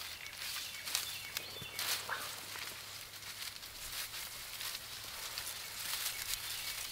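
Dry, straw-like grass stalks rustling and crackling under hands as they are spread and pressed down over a shelter's grass roof.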